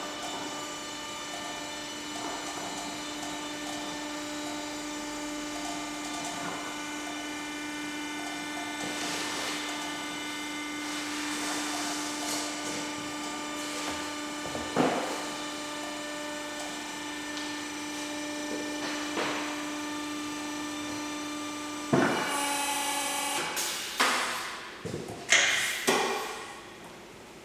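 Stenhøj Maestro two-post car lift's drive running steadily with a constant hum as the empty arms rise. Near the end the drive stops and several loud metallic clanks ring out.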